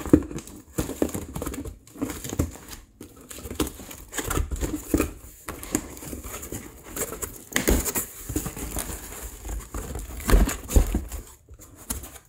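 Cardboard shipping box being opened by hand: irregular rustling and scraping of cardboard and tape, with several knocks and thumps as the flaps are handled, and the crinkle of plastic air-pillow packing.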